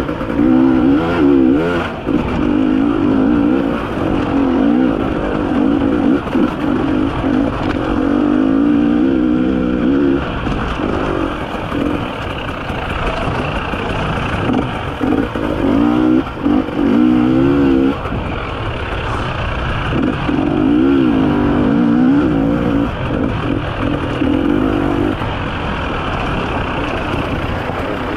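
300 cc two-stroke enduro motorcycle ridden along a technical trail, its engine revving up and down as the throttle is worked on and off, with several short lulls.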